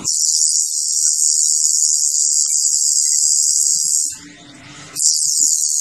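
Coil tattoo machine buzzing steadily with a high, hissing sound; it stops about four seconds in and starts again about a second later.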